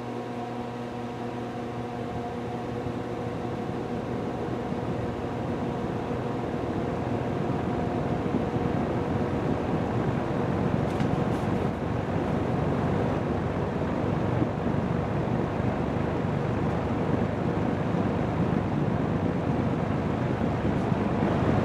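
GE five-blade box fan's Fasco motor starting up on low speed. A steady hum, with a little extra hum from the speed coil, is plainest at first; a rush of air grows steadily louder as the blade comes up to speed.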